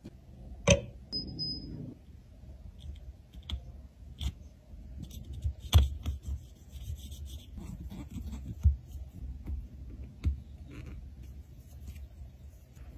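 Close-up handling of a lipstick casing: tweezers and a pick tapping and scraping against the plastic inner sleeve and the metal tube, with several sharp clicks, the loudest about six seconds in, and rubbing of gloved fingers between them.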